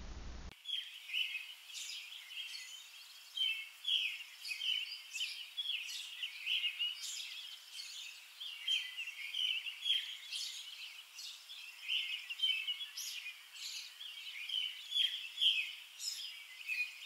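Songbirds chirping and singing outdoors, many short high chirps overlapping continuously, starting about half a second in.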